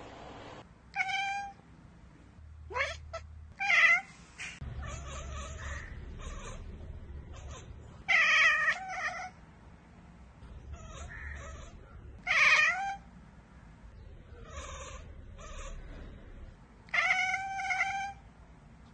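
Cat chattering, the stuttering 'ekekeke' call a cat makes on spotting a bird or insect it cannot reach. It comes in short bursts of about a second, five or so times with shorter quiet gaps between.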